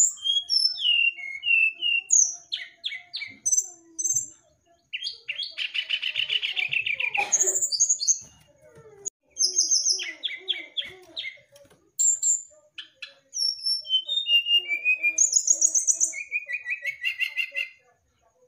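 Brown-chested jungle flycatcher (srdc) singing a varied song of short whistled and chirped notes, with a long fast trill about five seconds in and another near the end.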